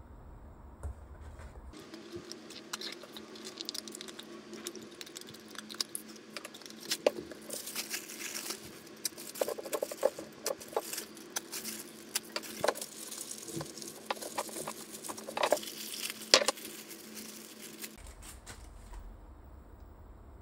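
Crinkling and rustling of a small clear plastic bag as it is handled and cut open with a box cutter, with scattered sharp clicks of small plastic parts. It starts about two seconds in and dies away near the end.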